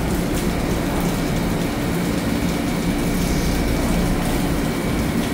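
Taiwan Railway EMU3000 electric multiple unit standing at the platform, humming steadily, with a faint steady high whine above the hum.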